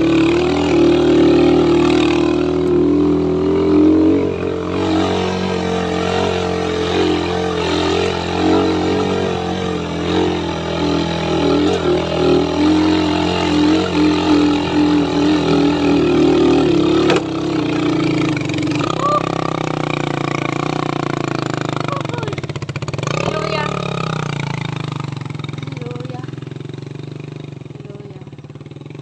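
Motorcycle engine running under way, steady for most of the time, with the pitch shifting about two-thirds of the way through and the sound growing quieter near the end.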